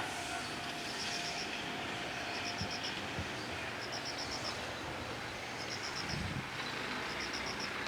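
Steady low rumble of a passing train dying away, with an insect chirping high over it in short trills of about five quick pulses every second or two.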